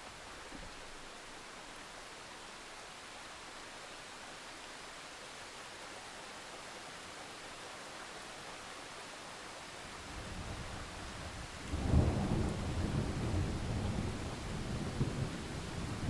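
Steady rain falling as an even hiss. About ten seconds in a low thunder rumble builds, then a sharp, louder clap comes about two seconds later and rolls on, rumbling, to the end.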